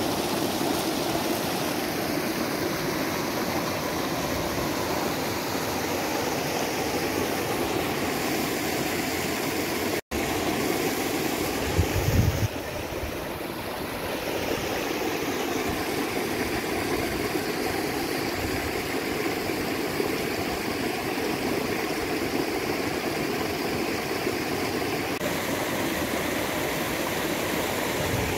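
A rocky mountain stream running over rocks: a steady rush of water. It drops out for an instant about ten seconds in, and a short low rumble breaks in about two seconds later.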